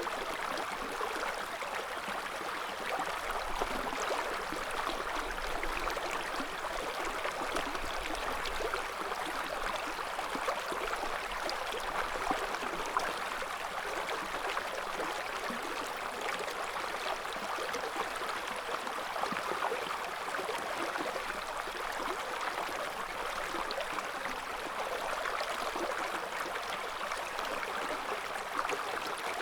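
River water flowing over stones in a steady, even rush, with small splashy ticks in it.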